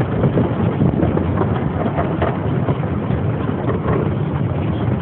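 A steady rumble with irregular clicks and knocks from the open cars of a small ride-on park train running along its track.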